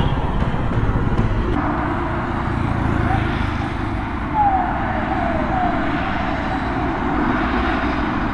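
Steady road-traffic and engine noise at a roadside stop, with a few short falling chirps in the middle.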